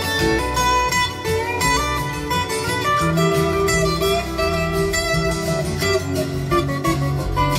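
Recorded pop-rock song in an instrumental break: a lead guitar line with notes that bend in pitch over bass and a steady beat.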